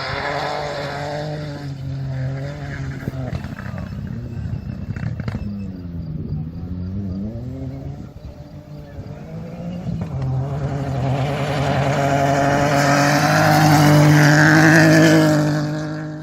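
Rally car's engine working hard on a special stage: its pitch dips and climbs as the driver lifts and re-accelerates, then it grows steadily louder as the car comes closer, loudest near the end.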